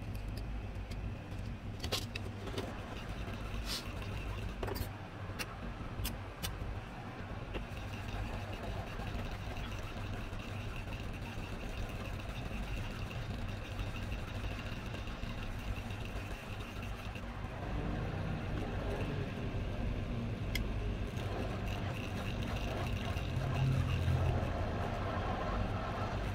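Hot air rework station blowing at 350 °C onto a phone board: a steady rushing hum, growing louder in the second half. A few sharp clicks of metal tools on the board come about two to six seconds in.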